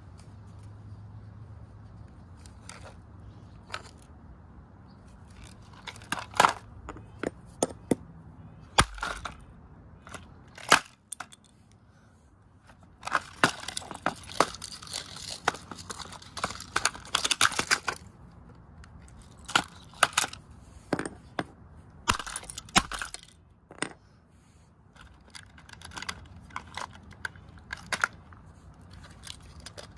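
A Sylvania alarm clock being broken apart: irregular sharp cracks, snaps and clicks of its plastic and parts. They are scattered at first, then come in a dense run of crackling and snapping in the middle.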